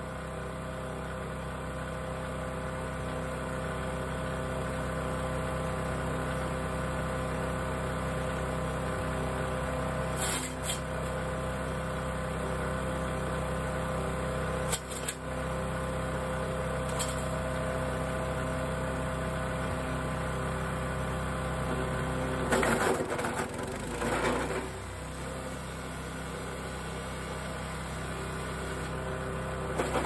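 Mini wood chipper's small gas engine running steadily. A few short knocks come along the way, and about 23 seconds in there are two seconds of louder, rougher crunching as a branch goes through the chipper, with the engine pulling down under the load.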